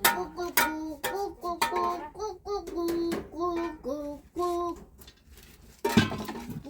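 A child singing a simple tune in short, held notes, with a few sharp clicks or knocks, one near the start and some about six seconds in.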